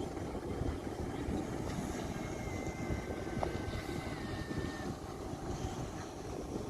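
Outdoor wind rumbling steadily on the microphone, with no engine tone showing through. A faint thin high tone runs for about three seconds in the middle.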